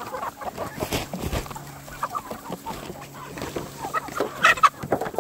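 A flock of chickens clucking with scattered short calls, and one louder, sharper call about four and a half seconds in.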